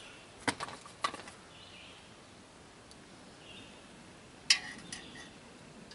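Light metallic clicks and taps of hand tools and a nut at a motorcycle exhaust stud on the cylinder head: two small clicks about half a second and a second in, then a sharper click with a brief ring about four and a half seconds in.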